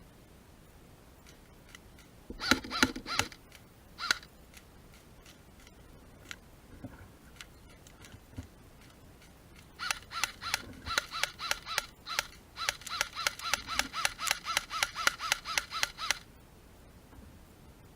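Airsoft gun firing: a short string of shots, a single shot, then two long rapid strings of evenly spaced shots at about six a second.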